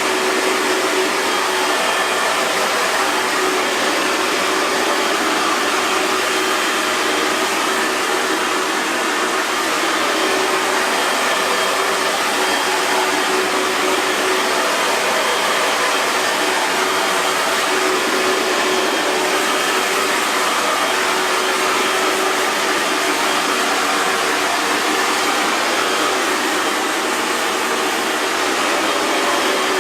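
Hair dryer running steadily: an even rush of blown air with a faint constant motor hum.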